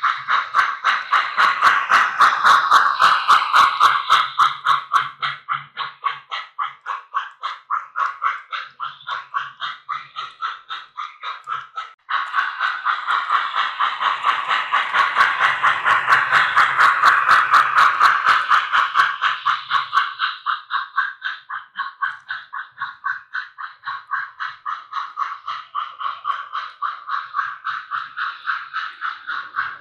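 Model steam locomotive, an MTH Premier O-gauge 4-4-0, running with its onboard sound system giving a steady chuff at about three to four a second. It gets louder twice as the engine passes close by.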